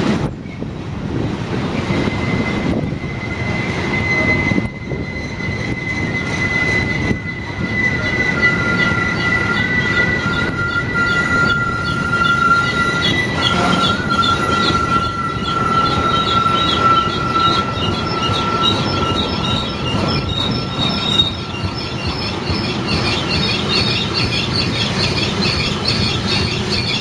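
Freight train's covered hopper cars rolling past with a steady rumble of steel wheels on rail. A long, high wheel squeal holds from about two seconds in, a second, lower squeal joins it, and in the second half many shorter, higher squeals chatter over each other.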